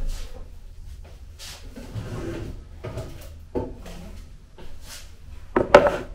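Food containers being handled and taken out of a refrigerator, with scattered knocks and rustles of jars and plastic tubs on the shelves. Near the end a plastic tub is set down on a wooden counter, the loudest knock.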